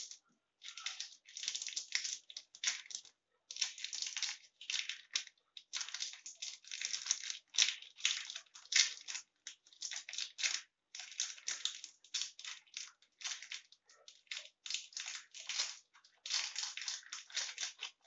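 Crinkly plastic wrapper around a dishwasher tablet, crackling in quick irregular bursts as it is torn open and unwrapped by hand.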